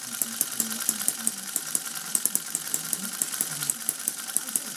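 Bob Shores–designed Little Angel model hit-and-miss engine, half-inch bore, running steadily with its governor not connected, so it fires every cycle instead of hitting and missing. It makes a fast, even train of sharp pops.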